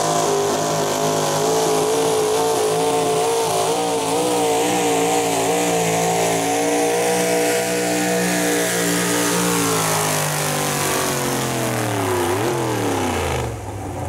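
Super stock two-wheel-drive pulling truck's engine running at high revs under full load while dragging a pulling sled, its pitch wavering slightly. About ten seconds in the revs fall away steadily as the pull ends, with a brief dip and rise in pitch, and the sound cuts off suddenly near the end.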